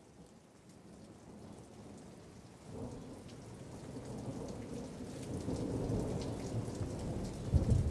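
Steady rain falling on wet pavement and puddles, swelling from faint to loud, with a low rumble of thunder building near the end.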